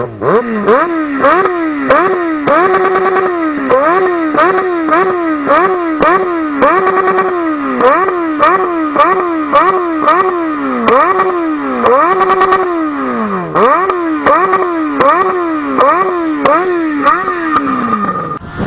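Yamaha XJ6 motorcycle's inline four-cylinder engine revved hard and loud in quick throttle blips, about two a second, the pitch climbing and falling with each one. A few blips are held briefly at the top, and one falls away for longer about three-quarters of the way through.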